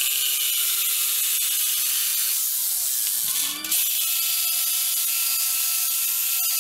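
Corded jigsaw running and cutting across a wooden board, a loud steady saw noise that starts abruptly and breaks off briefly about three and a half seconds in before carrying on.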